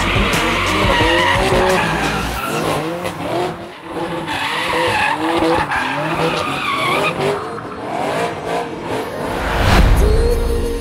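A car doing donuts: its tyres squeal in wavering bursts while the engine revs hard. The engine is loudest at the start and again near the end, with a brief lull about four seconds in.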